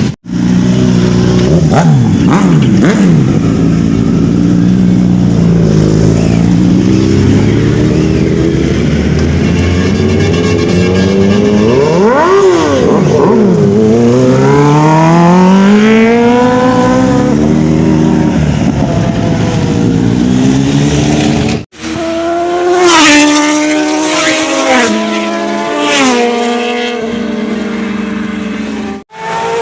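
Sport motorcycle engines revving hard, the pitch sweeping up and falling back again and again, in several pieces with abrupt cuts between them. In the last part the engine climbs in pitch and drops back in quick steps.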